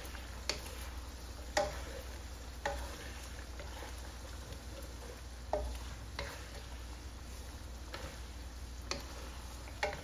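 Slotted wooden spatula stirring chicken feet curry in a non-stick wok, knocking against the pan at irregular intervals, about once a second or two, over a steady sizzle of the simmering sauce.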